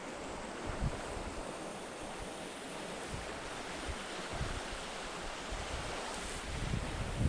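Steady outdoor rushing hiss, with a few brief low buffets of wind on the microphone.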